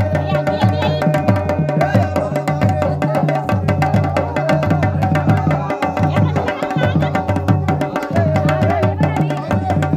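Garhwali jagar music: dhol and damau drums beating a steady, repeating rhythm.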